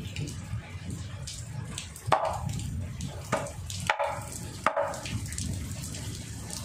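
A few sharp knocks of kitchen utensils or cookware being handled, four in all, most with a short ring after them, over a steady low rumble.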